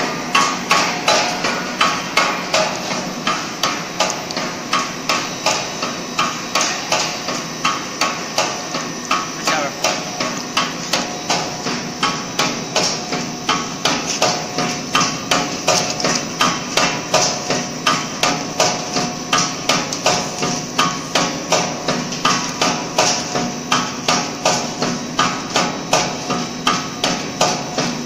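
Snack pellet cutting machine knocking steadily, about two strokes a second, over a steady machine noise as it chops the extruded wavy sheet into chip pellets.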